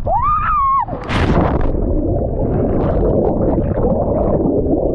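A man's rising shout as he leaps, then a splash about a second in as he plunges into the water. After that comes a steady churn of bubbling and rushing water, heard from under the surface.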